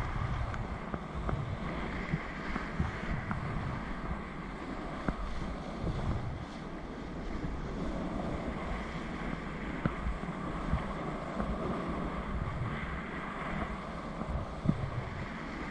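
Whitewater rapids rushing and churning around a kayak, with rumbling wind noise on the microphone, steady throughout.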